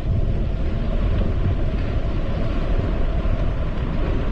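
Wind buffeting the microphone of a camera carried on a moving bicycle: a steady, low rumbling rush of air at riding speed.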